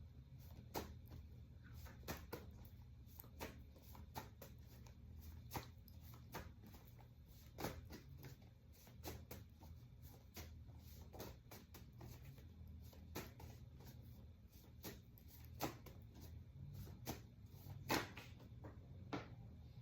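Faint, irregular taps and clicks of tarot cards being handled, a few every couple of seconds, over a low steady hum.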